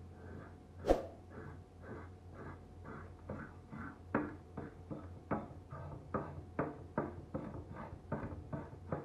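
Hand wire brush scrubbing surface rust off a steel knife blank in quick strokes, about two a second, getting stronger partway through. A sharp knock about a second in is the loudest sound.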